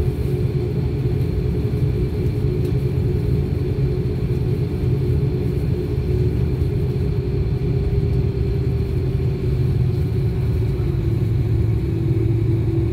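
Airliner's jet engines running steadily at low power, heard inside the cabin as a deep rumble with a steady whine. The whine drops slightly in pitch near the end.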